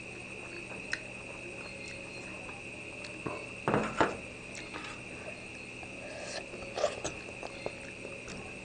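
A man eating spicy duck blood from a hotpot: a few short bursts of slurping and chewing, the loudest about four seconds in, with light clicks of chopsticks and a spoon against the steel pot, over a steady high-pitched whine.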